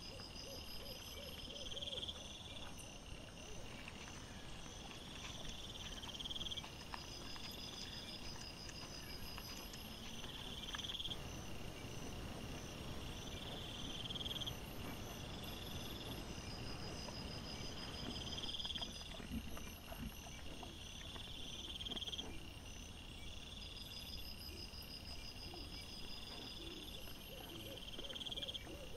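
Night insects calling: repeated trilling chirps, each about a second and a half long and recurring every two to three seconds, with a faster high pulsed chirping alongside, over a low uneven rustling.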